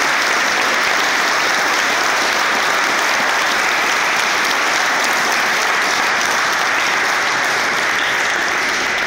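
A room of people applauding, steady dense clapping.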